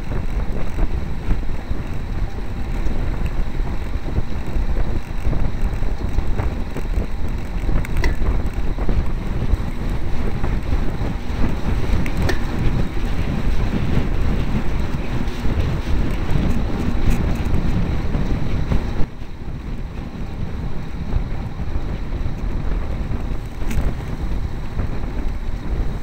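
Wind buffeting the microphone of a camera riding on a road bicycle at speed: a loud, steady, low rushing noise that eases somewhat about nineteen seconds in, with a few faint clicks.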